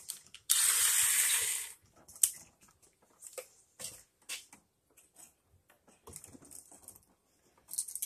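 Small scattered clicks and scrapes of a screwdriver turning terminal screws and of a light switch being handled in its plastic electrical box. About half a second in, a loud hissing rasp lasts about a second.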